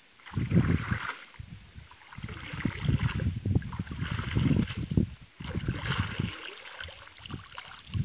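Water sloshing and splashing as a cast net is swished through shallow pond water and lifted out, water streaming off it, in uneven surges.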